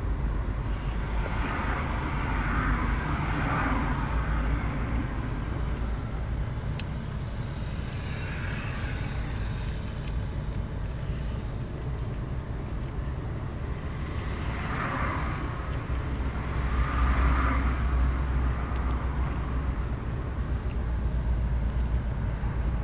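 Steady low rumble with intermittent rustling and scraping of dashboard trim and wiring being handled.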